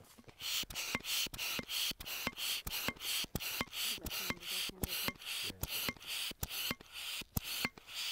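Hand vacuum pump drawing the air out of a vacuum mattress: quick, even strokes, each a short hiss with a click, about three a second, starting about half a second in. The mattress is being evacuated so that it goes rigid around the patient.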